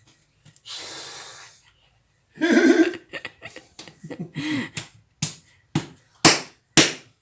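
A short breathy hiss and a brief voice-like sound, then four sharp slaps about half a second apart, the third the loudest.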